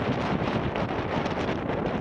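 Wind buffeting the microphone of a Garmin Virb 360 action camera on a moving mountain bike: a steady, dense rushing noise.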